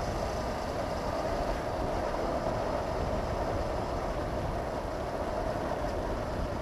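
Honda CB500X parallel-twin motorcycle cruising at a steady road speed, its engine running under constant wind rush over a helmet-mounted camera.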